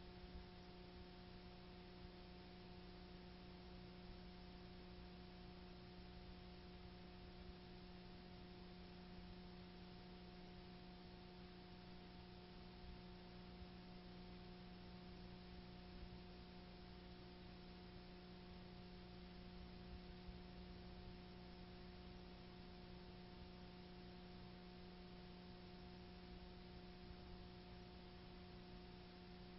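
Near silence: a faint, steady electrical hum with hiss, with no other sound.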